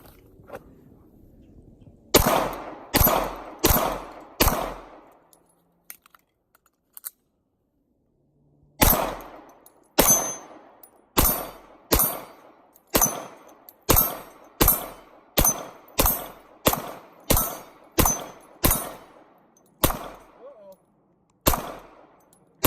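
9mm Glock 19 pistol firing at steel targets. Four quick shots come first, then after a pause of about four seconds a steady string of about fifteen more, roughly every half to two-thirds of a second, each trailing off briefly.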